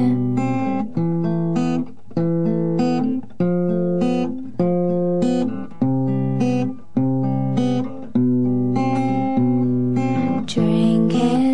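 Instrumental passage of a song: guitar playing chords, a new chord about every second.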